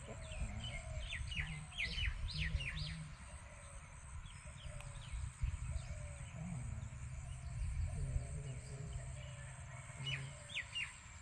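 Small bird calling in quick series of high, sharply falling chirps, one bout in the first few seconds and another near the end, over a steady low rumble.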